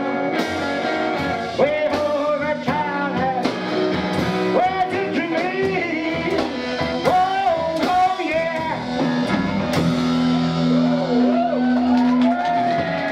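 Live rockabilly band: a man singing over electric guitar, double bass and drums. The singing stops about nine seconds in, and the band plays on with sustained guitar notes over the bass.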